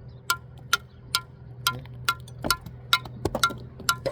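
A steel mason's tool striking a brick again and again, sharp ringing taps about two to three a second that come quicker near the end, as a small piece of brick is trimmed to shape.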